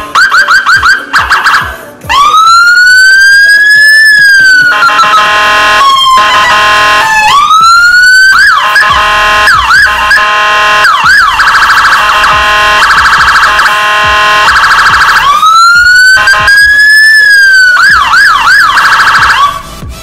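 Whelen Alpha electronic siren sounding through an SA315P speaker, cycling through its tones. A quick yelp of short up-and-down sweeps gives way to a slow rising and falling wail, then a fast buzzing warble with more yelp bursts, and a second slow wail comes near the end.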